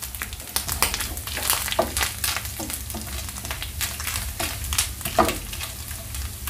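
Grated coconut frying in ghee in a nonstick pan, sizzling and crackling while a wooden spatula stirs and scrapes it around in repeated strokes, over a low steady hum. The coconut is being toasted toward golden brown.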